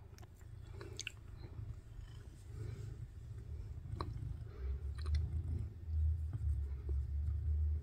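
Domestic cat purring while it is stroked, a low pulsing rumble that grows louder about halfway through, with soft rustles of a hand rubbing its fur.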